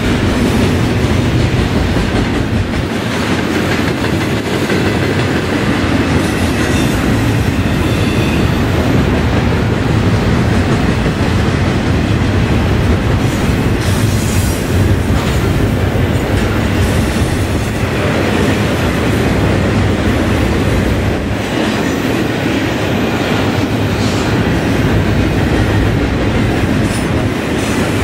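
Double-stack intermodal freight train's well cars rolling past, a steady loud rumble of steel wheels on rail with clicking as the wheels pass over the rail joints.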